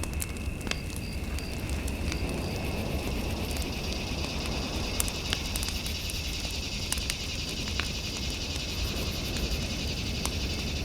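Fireplace fire burning with a low rumble and sharp crackling pops at irregular moments. A steady high hum with faint pulsing beeps runs over it.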